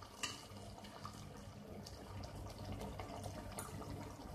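Cooked mutton curry simmering in a steel pot, faint scattered bubbling pops over a low steady hum.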